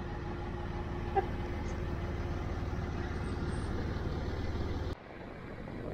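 Land Rover Discovery 3's 2.7-litre TDV6 diesel running steadily under way, heard from inside the cab as an even low rumble with a faint steady hum. The sound cuts off sharply about five seconds in.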